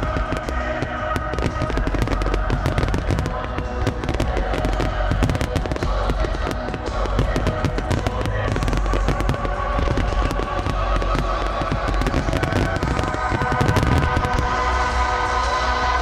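Starmine fireworks barrage: a dense, rapid stream of bangs and crackles from many aerial shells bursting in quick succession, over music played along with the show.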